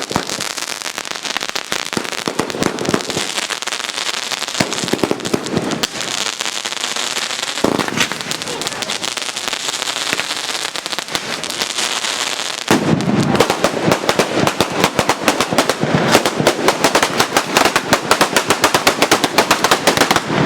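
A batteria napoletana, chains of firecrackers going off in a dense, rapid rattle of cracks. About two-thirds of the way through it grows louder and denser.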